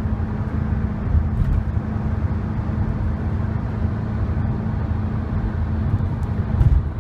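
Steady low rumble of a vehicle's engine and road noise inside a moving car, with a constant drone.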